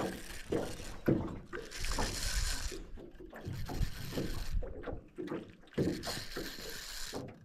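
Wind buffeting the microphone over choppy lake water, with gusts of hiss and splashing twice, and light knocks and rattles from the rod and a spinning reel being handled.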